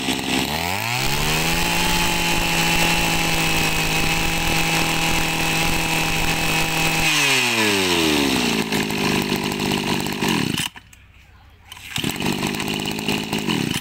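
Mitsubishi TL231 two-stroke brush cutter engine revved up from idle, held at high speed for about five seconds, then let back down to idle. Near the end the sound breaks off for about a second, comes back, and stops.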